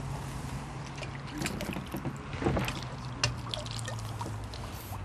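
Water splashing and trickling mixed with short clicks and rustles of fishing gear being handled at the water's edge, over a low steady hum that fades near the end.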